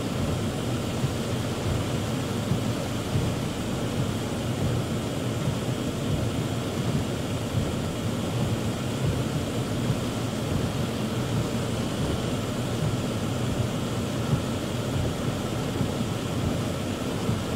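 Heavy rain on a car's roof and windshield, heard from inside the car: a steady rushing noise with small irregular peaks.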